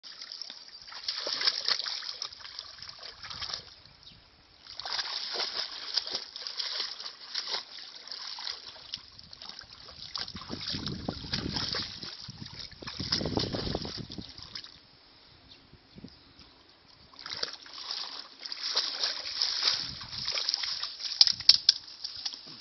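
A shepherd dog wading and splashing in a shallow, muddy brook as it tugs at the overgrowth. The splashing and sloshing come in bouts a few seconds long with short pauses, heaviest a little past the middle, and a few sharp snaps come near the end.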